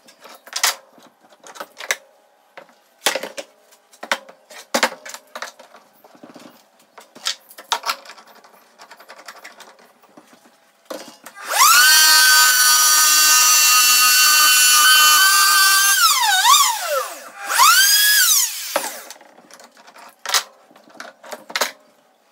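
Knocks and clicks of clamps and wood being handled on a workbench, then about eleven seconds in a handheld electric router starts and runs with a loud, steady high whine. It is switched off and its whine falls as it winds down, started again briefly, and wound down and stopped once more, followed by a few more knocks.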